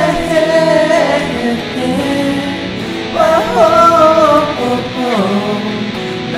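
A song: a voice singing two drawn-out, sliding phrases over guitar accompaniment.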